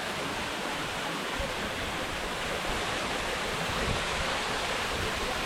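Steady rush of a waterfall running full, with a lot of water coming over the falls.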